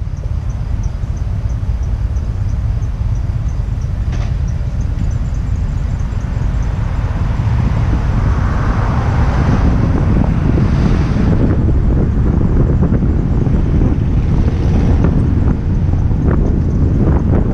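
Wind buffeting the microphone of a car-mounted action camera over a steady low rumble of road noise from a car driving in town, getting gradually louder over the first half.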